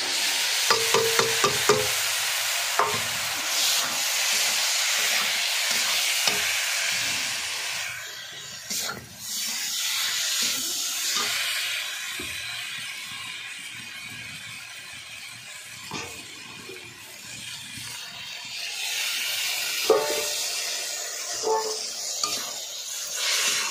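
Spiced water poured into a hot metal kadhai of potatoes and drumsticks, hissing and sizzling loudly for the first several seconds and then dying down to a quieter simmer. A metal spatula taps and scrapes the pan a few times near the start and now and then afterwards as the vegetables are stirred.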